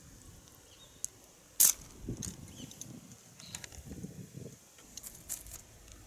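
A cat rolling and squirming on its back in grass makes soft, uneven rustling and scuffing. One sharp click about one and a half seconds in is the loudest sound, with a few fainter clicks later.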